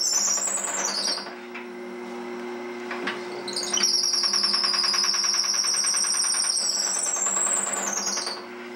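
A drill bit in the lathe's tailstock chuck squealing as it is fed into the spinning wood blank, over the steady hum of the lathe. The squeal stops about a second in, starts again just before halfway, and dies away near the end as the bit is backed out to clear the chips.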